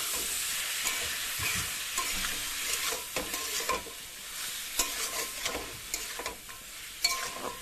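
Banana flower and spice paste sizzling in oil in a kadai while a metal spatula stirs it, with irregular scrapes and knocks of the spatula against the pan.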